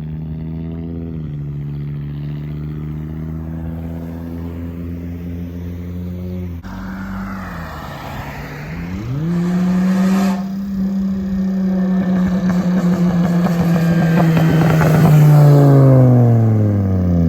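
Straight-piped VW Jetta 2.5 inline five-cylinder exhaust under way. The engine note holds steady, dips and climbs back up about halfway through, then holds a higher note that grows louder and rougher. It drops in pitch as the revs fall off near the end.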